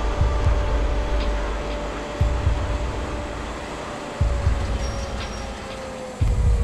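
Train rolling slowly along the rails: a steady low rumble with a heavy thump about every two seconds that fades away, and a thin whine that falls slightly in pitch.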